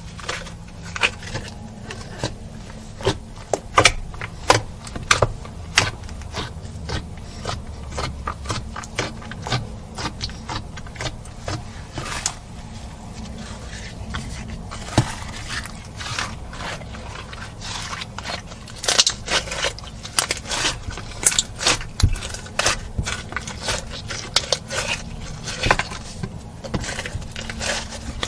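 Slime being kneaded and stretched by hand, giving off irregular sticky clicks and pops, thickest about two-thirds of the way in, over a low steady hum.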